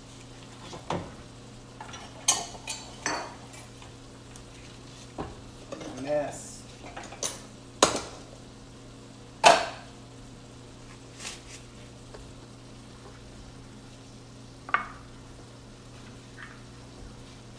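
Pots, pans and utensils clinking and knocking in a string of separate strikes as rice is dished up, the loudest about 8 and 9.5 seconds in, over a steady low hum.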